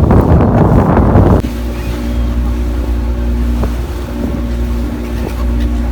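Loud wind buffeting the microphone, which cuts off suddenly about a second and a half in. It gives way to the steady drone of a passenger boat's engine.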